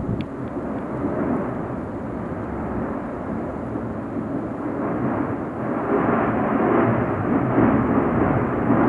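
Cumbre Vieja volcano erupting in a violent, gas-rich phase: a continuous deep roar of gas jetting and lava fountaining from the main crater, growing louder about halfway through.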